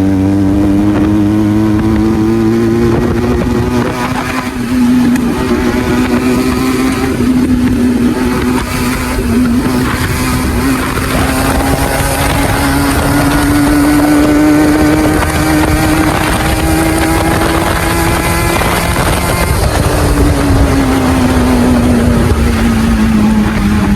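Benelli motorcycle engine with its stock exhaust, under way at a steady pace, its pitch slowly climbing and easing with the throttle, then falling away about 20 seconds in as the bike slows, with wind rush underneath.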